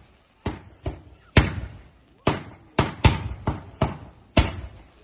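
Fireworks going off in a rapid, uneven string of sharp bangs, about nine in five seconds, each with a short echoing tail.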